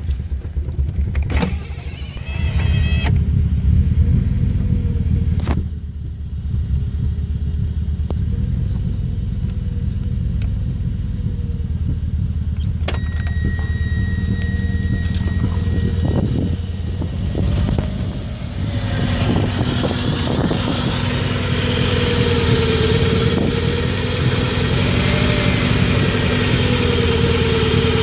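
1994 Subaru Impreza's flat-four engine running unevenly with a misfire, which the owner suspects is a coil pack or MAF sensor fault. It grows louder about two-thirds of the way through.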